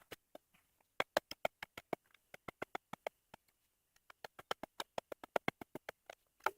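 A digging tool scraping and chipping through loose shale: a fast, irregular run of sharp clicks and clinks, several a second.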